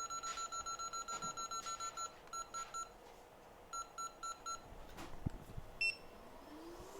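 Hot air rework station's control panel beeping as its settings are stepped: a fast run of short identical beeps, about six a second, then short groups of three and four. A single higher beep follows, and near the end the station's fan spins up with a rising hum.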